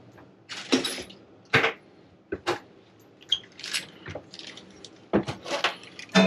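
Irregular metallic clinks and knocks, about ten in six seconds, as a new Moen kitchen faucet's hoses and metal fittings are handled and fed down through the faucet hole in the countertop.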